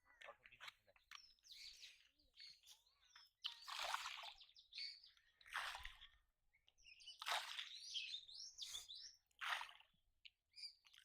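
Faint birds chirping and calling in short, scattered bursts, with a few louder noisy surges lasting about a second each.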